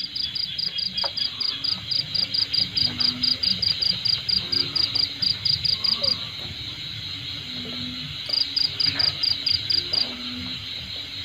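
Insects calling: a rapid, even high-pitched pulsing, about five pulses a second, over a steady high drone; the pulsing stops about six seconds in and comes back briefly near the end.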